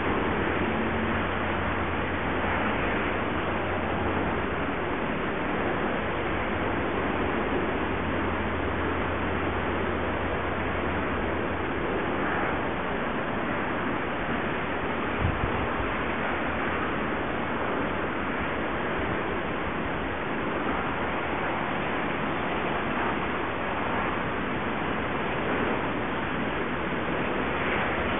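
Steady, even rushing noise with no distinct events, a low hum underneath for roughly the first twelve seconds and a single click about fifteen seconds in.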